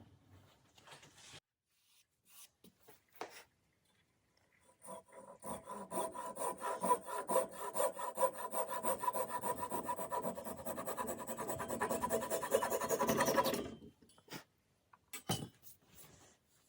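A hand tool rasping on wood in rapid, even strokes for about nine seconds, stopping suddenly, with a few light knocks before and after.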